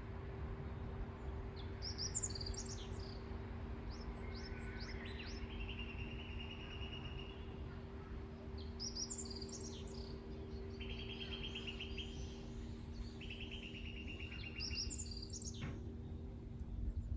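Songbirds singing: clusters of high chirps and several short buzzy trills every few seconds, over a steady low rumble of lake water and a faint constant hum.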